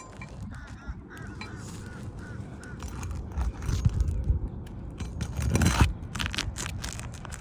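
A claw hammer scraping and prying under asphalt roof shingles to break their sealant strips, with grating and a few sharp clicks from about five to seven seconds in. During the first three seconds a bird gives a quick run of about eight short calls.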